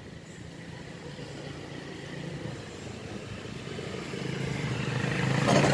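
Motorcycle engine running with a steady low hum, growing louder over the last couple of seconds.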